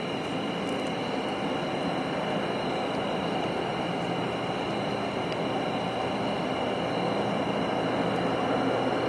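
Steady, distant machine-like whirring hum of unidentified origin, with faint steady high-pitched tones above it, growing slightly louder toward the end.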